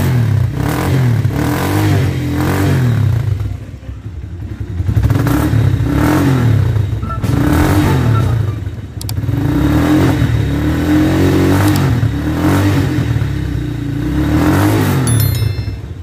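Motorstar Z200R motorcycle engine running and being revved, its pitch rising and falling about four times in long swells.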